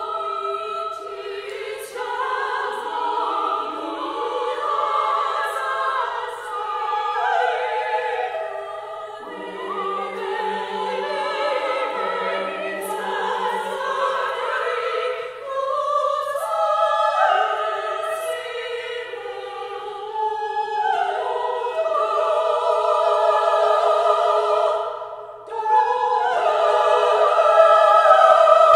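Women's choir singing held, overlapping notes, with a solo voice in the high Scandinavian kulning herding-call style.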